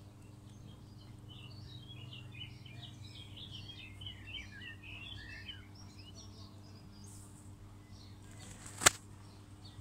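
Small birds chirping in a quick run of short calls for several seconds. A single sharp click near the end is the loudest sound.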